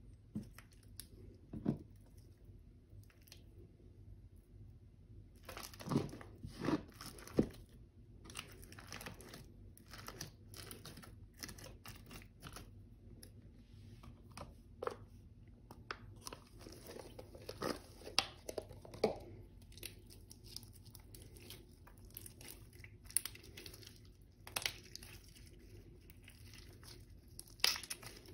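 Slime being worked and squished by hand, making irregular short sticky pops and squelches, with a few louder bunches of them.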